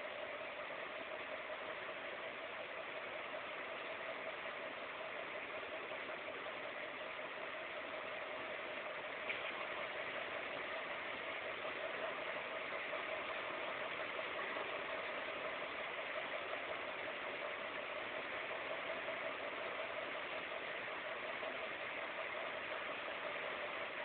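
Desktop computer running as it boots: a faint, steady fan hum with one held mid-pitched tone, and a single light click about nine seconds in.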